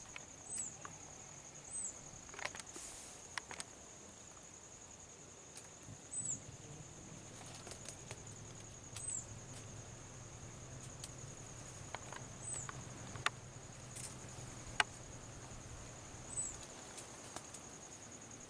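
A steady, high-pitched insect drone, with a short chirp repeating every few seconds and scattered sharp clicks and rustles in the brush. A faint low hum runs through the middle.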